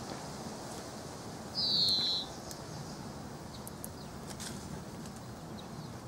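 European greenfinch giving one drawn-out, high, slightly falling call, about half a second long, a second and a half in. A steady faint outdoor hiss sits beneath it, with a few light ticks.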